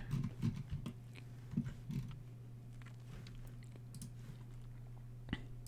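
A few faint, scattered computer-mouse clicks over a steady low hum; the loudest click comes near the end.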